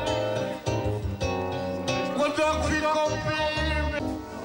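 Music: a song with a singing voice over instruments and a bass line.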